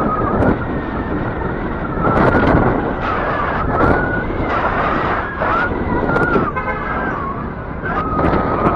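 City street traffic heard while riding an electric bike, with a steady rush of road noise and a thin high whine that wavers in pitch and comes and goes. A short buzzing burst about two-thirds of the way in.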